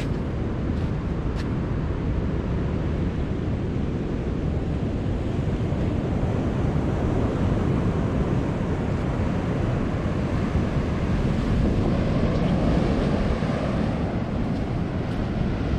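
Ocean surf washing on the shore, mixed with wind rumbling on the microphone; the wash swells a little late on.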